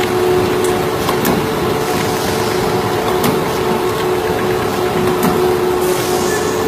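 Double-head punch machine running with a steady hum and a sharp click about every two seconds.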